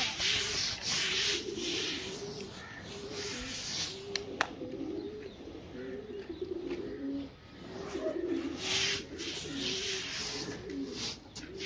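Pigeons cooing over and over in short, low warbling calls. Between them come rustling bursts of hands raking wet grain across a cloth sheet.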